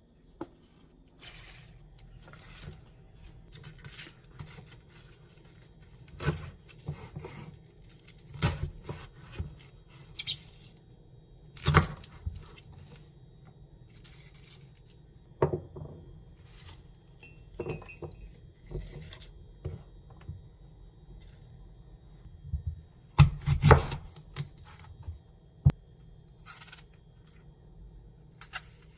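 Scattered clicks, knocks and rustles of dishes and utensils being handled during kitchen preparation, with a louder cluster of clatter about three-quarters of the way through.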